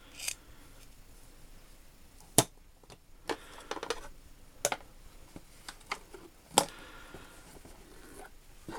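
Scattered sharp clicks and knocks of small metal tools being handled and set down in a toolbox drawer, with two louder knocks, one a couple of seconds in and one about two-thirds of the way through.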